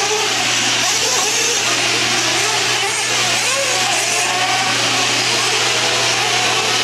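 Several 1/8-scale nitro RC truggies with small two-stroke glow-fuel engines racing together, their high buzzing whine rising and falling in pitch as the throttles open and close.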